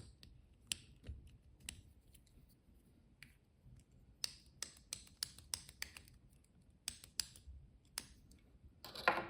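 Light clicks and taps of a fly-tying bobbin holder and tools being handled while a thread spool is fitted into the bobbin, with a quick run of clicks around the middle and a short, louder scrape near the end.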